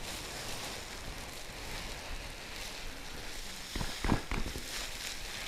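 Ground compound feed pouring from a woven sack into a plastic bucket: a steady hiss, with a few short knocks about four seconds in.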